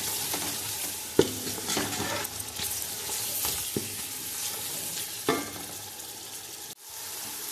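Onion-tomato masala frying in ghee in a steel pot, a steady sizzle, while a spoon stirs it with a few sharp scrapes against the pot. The sound drops out for an instant near the end.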